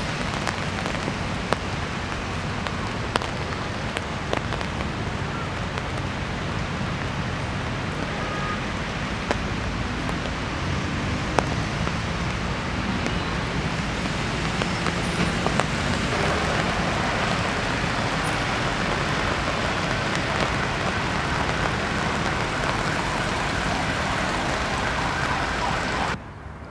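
Steady heavy rain mixed with the hiss of traffic on wet roads, with a few sharp ticks of close drops. It gets louder a little past halfway and cuts off suddenly near the end.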